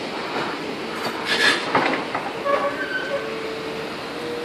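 Caterpillar excavator working over the fire-damaged buildings. Metal debris knocks and scrapes, then from about halfway through comes a steady, high metallic squeal lasting a couple of seconds.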